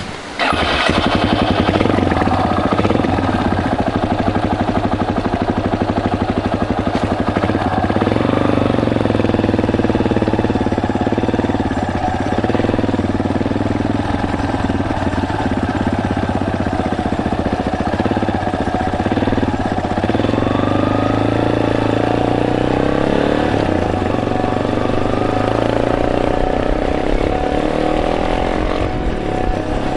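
Yamaha Serow motorcycle's single-cylinder engine running steadily under way, its pitch rising and falling a few times with throttle.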